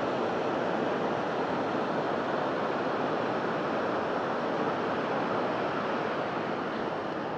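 Heavy flow of foaming water rushing out through the dam, a loud steady rush with no let-up.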